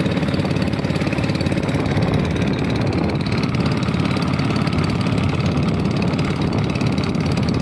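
Small fishing boat's engine running steadily while the boat is under way.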